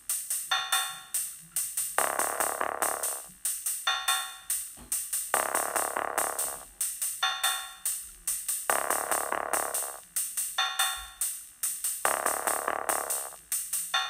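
Background electronic music with a steady drum-machine beat and a short synth phrase that repeats about every two seconds.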